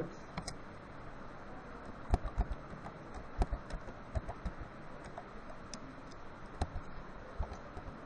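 Typing on a computer keyboard: irregular keystroke clicks, some in quick runs of a few, over a faint steady hiss.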